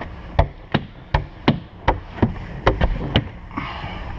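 Sharp taps, about two or three a second, as a Clear Max squeegee is worked in quick overlapping strokes over wet window tint film on a car's rear glass. A short hiss comes near the end.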